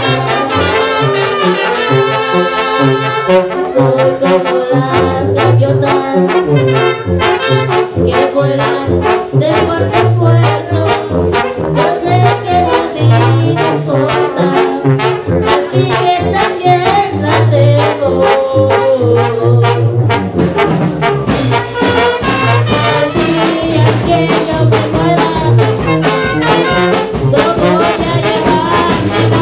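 Live banda music: trombones and trumpets playing the melody over a sousaphone bass line and drums keeping a steady beat.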